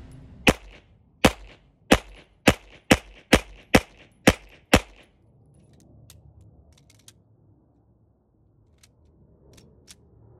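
Atlas Gunworks Athena pistol firing a string of nine shots on a head box accuracy drill, the cadence speeding up from slow to quick. The shooting stops about five seconds in, followed by a few faint clicks as the pistol is handled.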